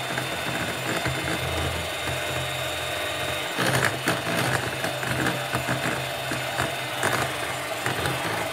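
Electric hand mixer running steadily, its beaters whisking thick cake batter in a glass bowl, with more clicking and rattling from about halfway through.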